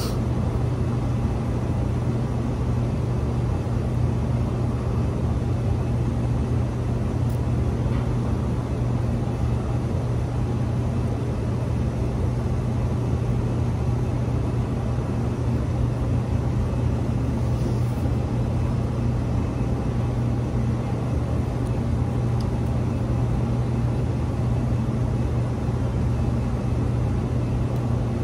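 Steady low mechanical hum that runs on without change, with a few faint soft clicks above it.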